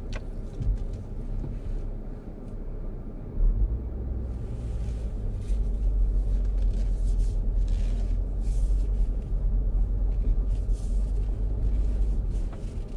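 Low rumble of a car heard from inside as it drives slowly on a gravel road and turns around, growing louder about three and a half seconds in.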